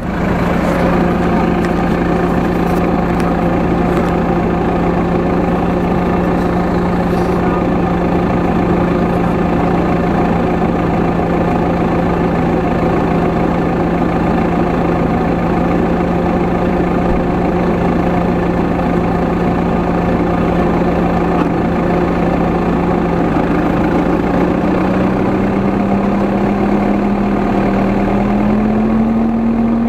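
Kubota M7 tractor's diesel engine running steadily at low revs; its pitch rises in two steps near the end as the tractor starts to move.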